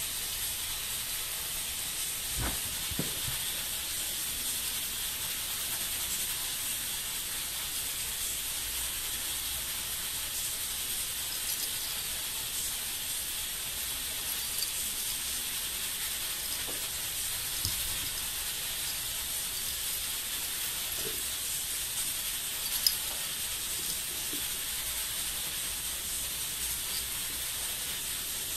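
Steady high hiss of background noise, with a few soft knocks as a kitten bats at a hanging plastic ball toy and one sharp tick about three quarters of the way through.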